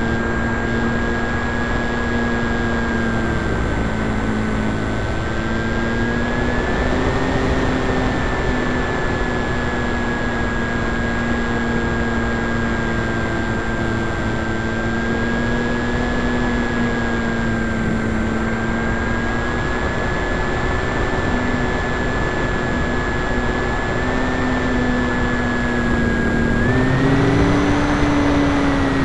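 Electric motor and propeller of a 9 mm foam Yak 55 RC model plane running in flight, heard from on board: a steady whine that wavers a little with the throttle and rises in pitch near the end.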